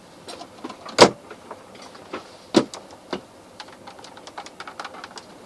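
Knocks and clatter of gear being handled in a yacht's cockpit locker: a sharp knock about a second in, another about two and a half seconds in, then a run of light clicks and taps.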